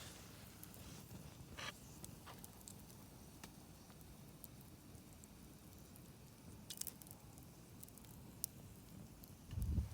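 Wood campfire burning quietly, with a few sharp crackles and pops spaced seconds apart. A low thump just before the end.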